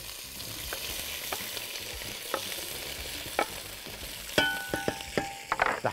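Cubed potato frying in oil in a pot with a steady sizzle. Wooden knocks from a wooden scraper on a wooden cutting board come about once a second, then a quick cluster of knocks as the board is tipped and potato drops into the pot.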